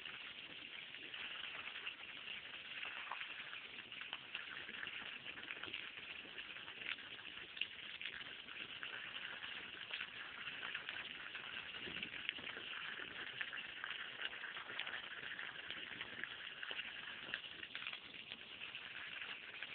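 A stream of water from a garden hose pouring and splashing onto wet grass and puddles, a steady patter with many small splashes.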